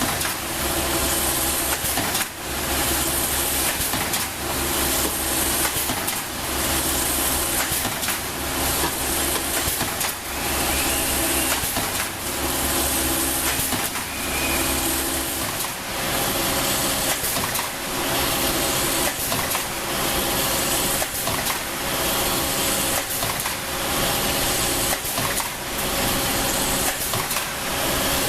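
Wire straightening and cutting machine running: steady mechanical noise from the machine and the wire being fed, going through a cycle that repeats about every two seconds, with a brief sharp knock between cycles.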